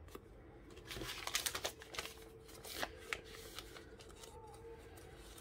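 Faint crinkling and rustling of a small diamond-painting tool packet being handled and opened, in a cluster of short, sharp rustles and clicks starting about a second in.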